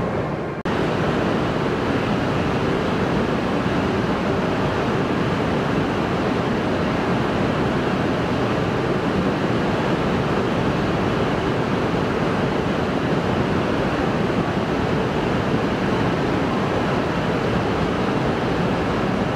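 Steady, even rushing noise of Shinkansen station platform ambience that holds unchanged, after a short drop in level just under a second in.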